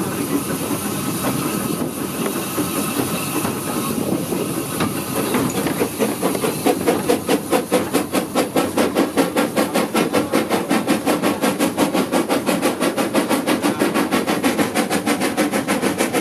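Tanfield Railway's No. 2 steam locomotive on the move, heard from just behind the engine: a steady hiss of steam and running noise, then from about five seconds in a regular beat of exhaust chuffs, about four or five a second.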